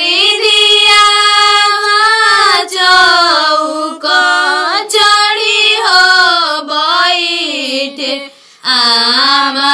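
A female voice singing a kanyadan geet, the traditional wedding song for the giving away of the bride, unaccompanied, in long held notes that slide and bend between pitches, with a short breath pause near the end.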